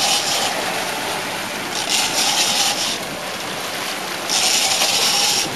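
Fishing boat under way on open water: a steady rush of engine, water and wind, with a loud hissing rush about every two and a half seconds, three times.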